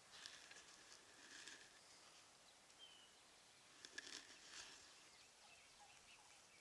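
Near silence in the woods: faint, scattered rustles of leaves and twigs, a small click about four seconds in, and one short, high bird chirp about three seconds in.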